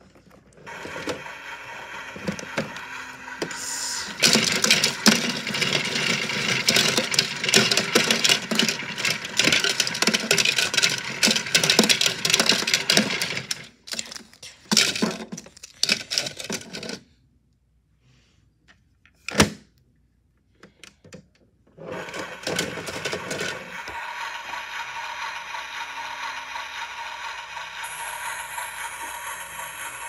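Toy washing machine running with three plastic toy dump trucks in its drum: the trucks clatter and rattle against the drum over the whir of the small motor. About halfway through the sound stops for a few seconds, with a single sharp click, then the motor starts again with a steadier whir.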